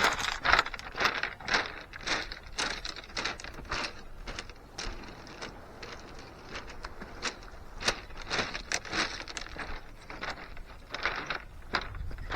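Footsteps crunching on beach shingle, an uneven run of crackling strokes about two a second.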